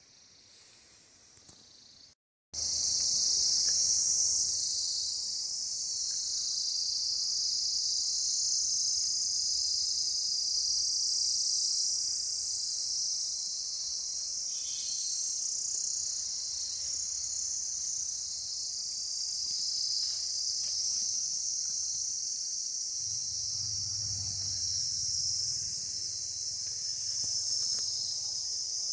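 A steady, high-pitched chorus of insects that starts abruptly a couple of seconds in and carries on without a break.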